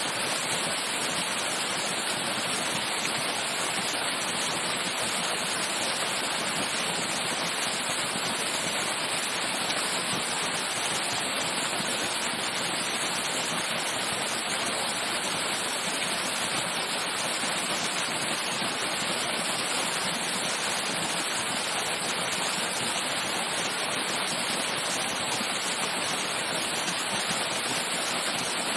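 Waterfall heard from its base: a steady, unbroken rush of falling water.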